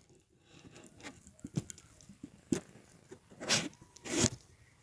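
Faint handling noise as a camera is repositioned: scattered light clicks and taps, with two short rustling rushes about three and a half and four seconds in.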